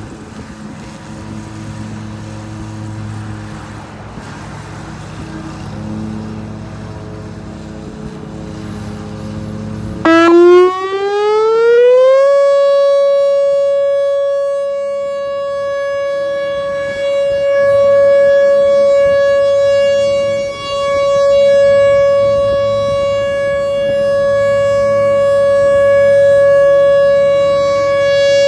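Whelen WPS 4004 electronic outdoor warning siren coming on after about ten seconds of low background rumble. Its tone rises over about two seconds and then holds one steady pitch, loud, swelling and dipping slightly.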